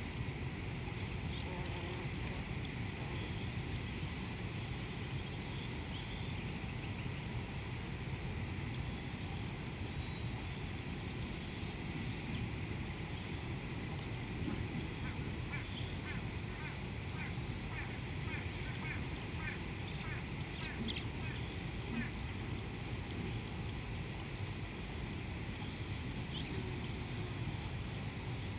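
A bird at the watering hole gives a run of short calls, about two a second, for several seconds past the middle. Under it a steady high insect drone and a low rumble of wind or ambient noise carry on throughout.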